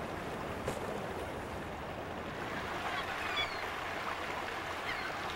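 Wind and choppy water on an open bay: a steady rushing and lapping of small waves, with a few light splashes.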